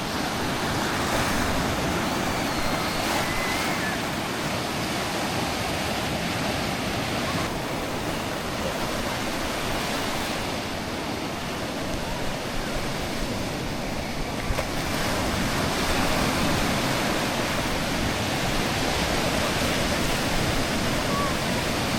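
Sea waves and surf washing in, a steady rushing noise.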